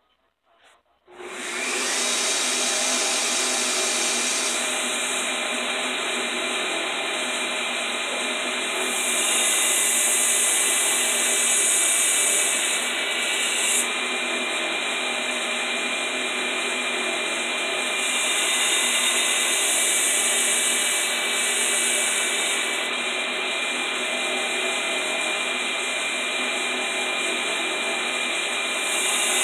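Belt grinder switched on about a second in, its motor and belt running steadily while a hardened spring-steel knife blade is ground on the belt to form the bevel. The hiss grows louder in several stretches, as passes of the blade across the belt would make.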